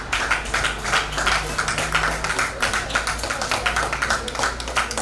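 A small crowd clapping: many quick, uneven claps overlapping.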